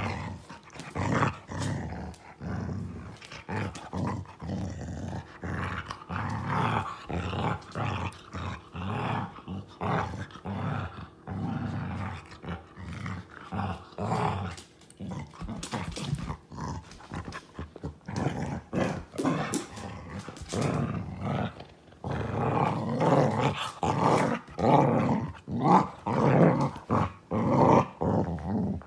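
Keeshond growling in rapid, irregular short bursts while play-wrestling with a cat, mouthing at it; a play growl, not aggression. The growling gets louder and more continuous in the last several seconds.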